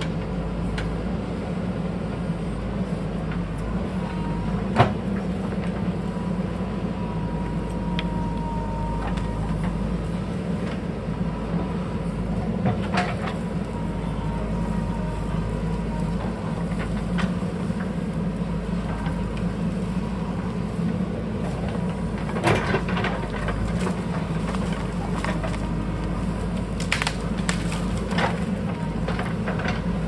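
JCB backhoe loader's diesel engine running steadily under digging work, with scattered sharp knocks and clanks from the bucket working rock and soil, the loudest about five seconds in.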